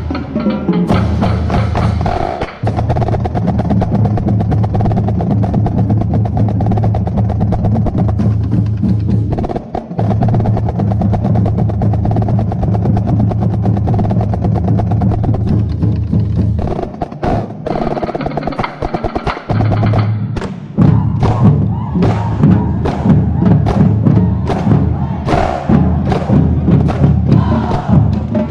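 Marching drumline of snare drums, tenor drums and bass drums playing a fast cadence together. It drops briefly about two-thirds through, then comes back louder with sharp, hard hits.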